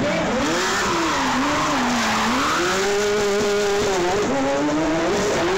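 Shortcar's engine revving up and down as it is driven around a tight course. The revs drop about two seconds in, climb and hold, dip again near four seconds, then rise, with tyre skidding noise in the first half.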